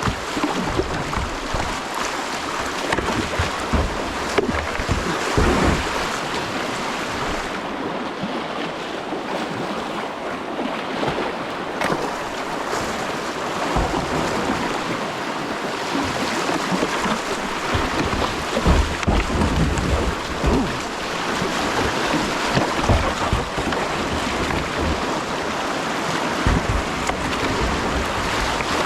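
Whitewater rapids rushing steadily around a kayak as it is paddled downriver, with irregular low buffeting of wind or water on the microphone.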